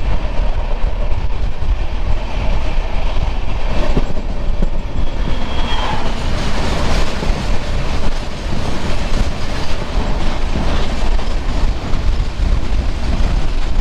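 Saraighat Express passenger train running at speed, heard from on board: a steady loud rumble with frequent clacks of the wheels over the track.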